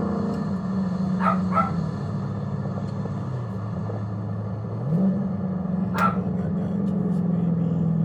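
Dodge Scat Pack's 6.4-litre HEMI V8 running at low speed, its note dropping a little about halfway through and rising again about five seconds in. Three short sharp yelps sound over it, two close together near the start and one about six seconds in.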